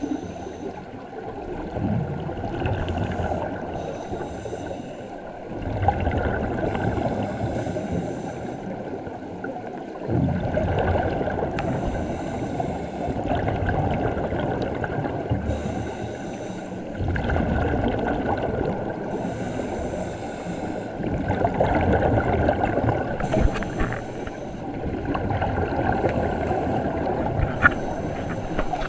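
Scuba divers heard underwater: regulator breathing and exhaled bubbles gurgling and rumbling. The noise swells with each breath every few seconds, with short hissy bubble bursts now and then.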